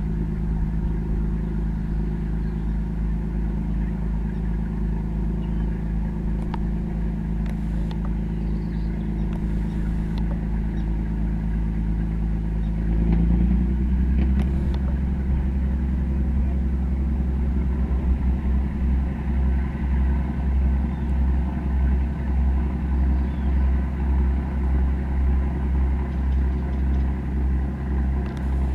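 Low, steady engine drone from a passenger motor boat underway. About halfway through it shifts lower and a little louder, and then throbs slowly and evenly.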